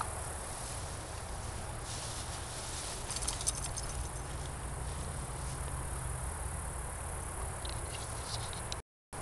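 Insects trilling steadily in a grassy field over a low rumble, with a few brief clicks about three seconds in; the sound cuts off suddenly near the end.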